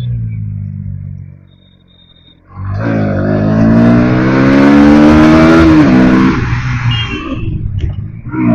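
Bajaj Pulsar NS160 single-cylinder engine under way: the note falls off and fades almost away, then the bike pulls hard with a rising note for about three seconds, drops as the throttle comes off or the gear changes, and picks up again near the end.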